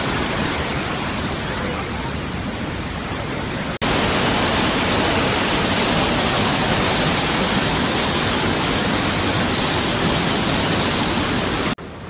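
Rhine Falls' whitewater rushing: a steady, even rush of falling, churning water. About four seconds in it cuts suddenly to a louder, hissier rush right beside the falling water, and near the end it drops back to a quieter rush.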